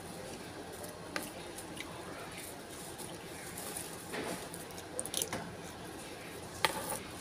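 Metal spoon scraping and clinking in a plastic-bag-lined bowl as rice and bitter melon are scooped up, with a few sharp clicks, the loudest near the end. Soft eating sounds in between.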